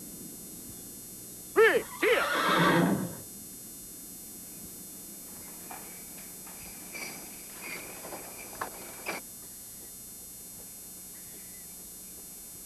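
A horse whinnies about two seconds in: a quavering neigh that runs into a breathy rush lasting about a second. A few faint scattered sounds follow.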